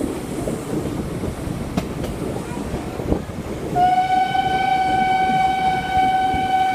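Steam locomotive's whistle blowing one long, steady blast that starts about four seconds in, over the continuous running noise of the vintage coaches on the rails.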